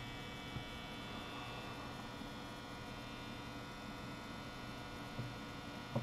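Steady electrical mains hum, with a few faint short clicks.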